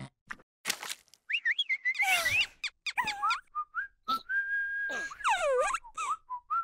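Animated larva characters making squeaky, gliding cartoon vocal sounds in place of speech, with a held whistle-like note about four seconds in followed by swooping falling squeals.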